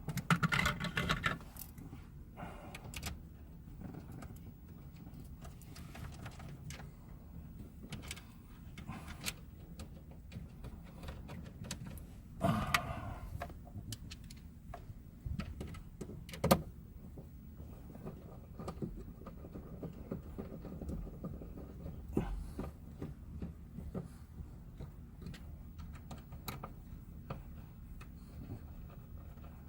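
Scattered small clicks, taps and rattles of car-interior parts and screws being handled during reassembly, with a louder rustle about twelve seconds in and a sharp click a few seconds later.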